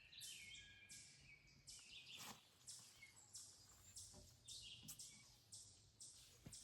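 Faint rhythmic high-pitched chirping, about two pulses a second, with a few short higher chirps near the start and a couple of faint knocks.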